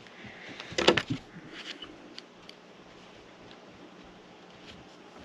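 Skil 12-volt auto hammer and roofing nail knocking against a wooden board: a short cluster of sharp knocks about a second in, then a few light ticks.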